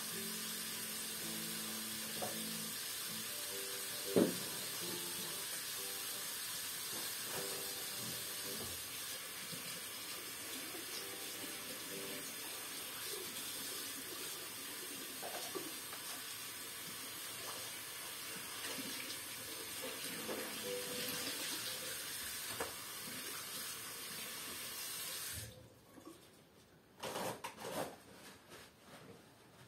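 A steady rushing hiss that cuts off suddenly near the end, followed by a few light clicks and knocks.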